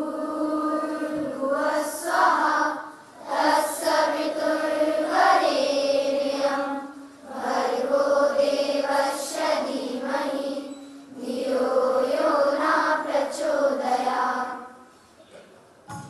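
Schoolchildren singing a prayer in unison: four long, held phrases with a short break for breath between each, the singing fading out near the end.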